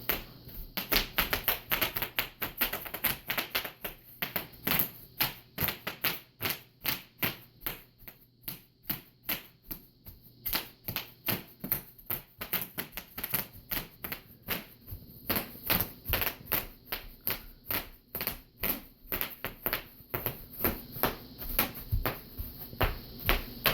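Bubble wrap popping: sharp pops one after another, about three or four a second at an uneven pace.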